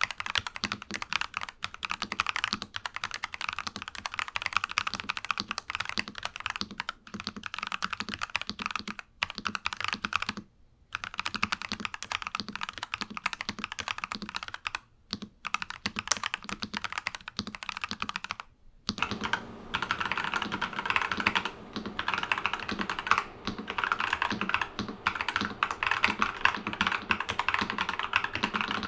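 Fast typing on a NuPhy Halo 96 mechanical keyboard with Akko Crystal Silver switches: a dense run of key clicks with short breaks about ten, fifteen and nineteen seconds in. After the last break the typing sounds fuller.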